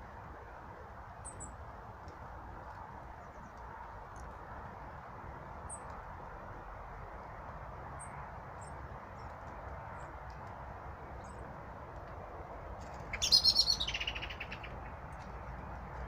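Small birds at feeders giving faint, high, short chirps every second or so over a steady background rush. About thirteen seconds in, a much louder bird call comes in: a rapid rattling series that falls in pitch over about a second and a half.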